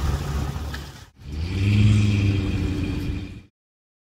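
Engine running with a low, steady hum that cuts off abruptly about a second in, then another engine passage that swells a little and eases off before stopping suddenly.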